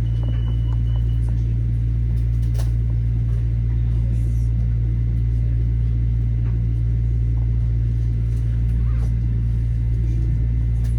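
Steady low rumble inside a Metro-North M7A electric railcar running along the track, with a few faint clicks.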